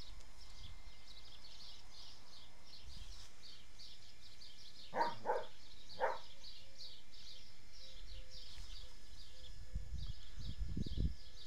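A borzoi gives three short barks in quick succession, part of the dogs' alarm at a stork in the neighbouring field. A fast, high chirping goes on in the background, and low rustling thumps come near the end.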